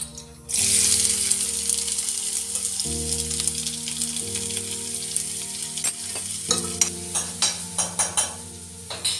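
Chopped onion hitting hot oil in a kadhai: a loud sizzle bursts in about half a second in and keeps frying steadily. In the second half, sharp clicks of a spatula stirring against the pan.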